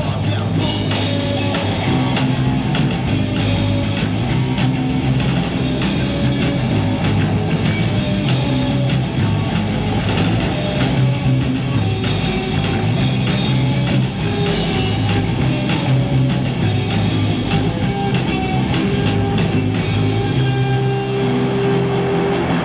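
Rock band playing live: electric guitar, bass guitar and drum kit together in a steady, loud song.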